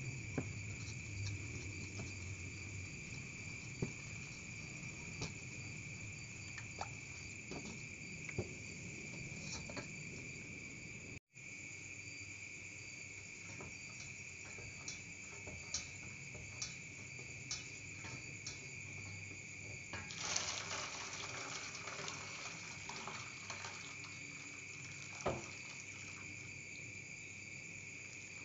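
Wooden spoon stirring sago starch in a stainless-steel bowl, with scattered light clicks and knocks of the spoon against the bowl and a short burst of splashy noise about two-thirds of the way in. A steady high-pitched trill runs underneath.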